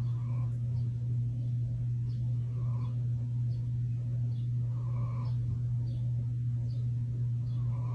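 German shepherd snoring, a soft rasp on each breath that comes back about every two and a half seconds, over a loud steady low hum.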